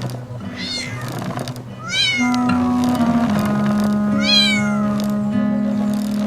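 Three high animal cries, each rising then falling in pitch, about a second and a half apart, over background music.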